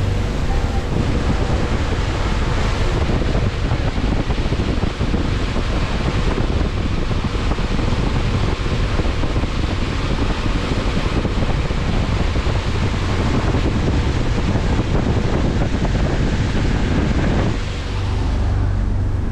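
Steady wind rushing over the microphone, which dies down near the end, leaving a low steady hum.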